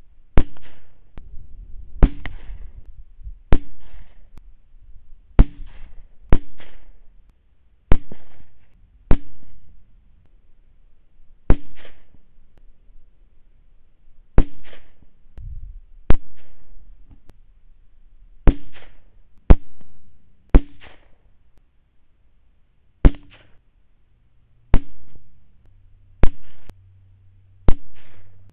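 Rifle shots fired in quick succession, about seventeen of them, each a sharp crack with a short tail, one every one to two and a half seconds.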